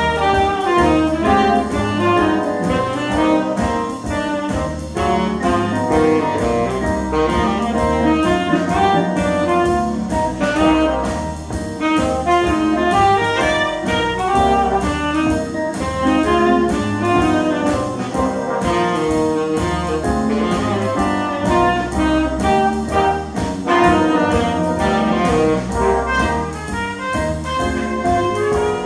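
Live big band playing swing jazz: saxophones and brass over a rhythm section with piano and a steady drum beat.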